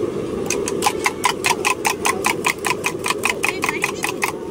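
A spoon beating egg in a small steel tumbler: a fast, even run of ringing metallic clinks, about six a second, that stops just before the egg is poured. A steady low rumble runs underneath.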